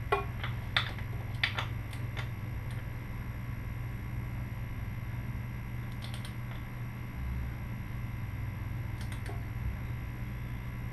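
Sparse light clicks and taps of hand tools on the motorcycle's oil drain plug or filter as it is snugged down by hand, several in the first two seconds and a few more later, over a steady low hum.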